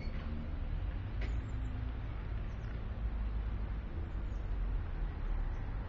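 Steady low background rumble, with a few faint, short high squeaks over it.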